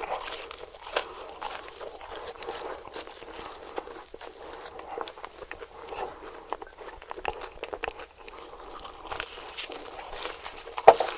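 Close-miked chewing of crispy fried food (hash browns and chicken nuggets), with irregular wet crunches and mouth clicks. A louder crunch comes near the end.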